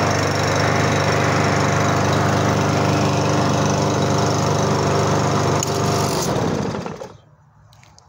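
Briggs & Stratton engine on a walk-behind push mower running steadily at speed, then winding down and stopping about six or seven seconds in. It runs once the slack in its stretched brake cable is taken up; that stretched cable had kept the mower from starting.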